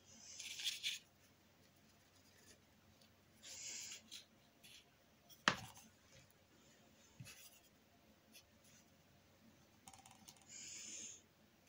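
Faint paintbrush strokes of acrylic paint on a painting surface: three short hissing strokes, with one sharp click of a tool on the surface about halfway through.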